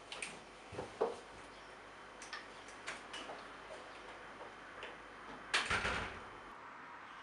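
Small clicks and knocks at the front door's handle and lock, then the door shutting with a thud about five and a half seconds in.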